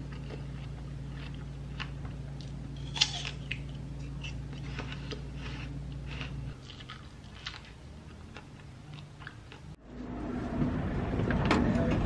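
Chewing and biting into fresh fruit, with short light clicks of a metal fork against a ceramic plate, over a steady low hum that drops out about two thirds through. Near the end it cuts to louder background noise of being out and about.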